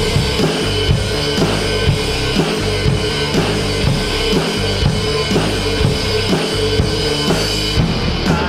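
Pearl drum kit played in a driving rock beat, with regular kick-drum and snare strikes and cymbals, over a recorded rock song playing along.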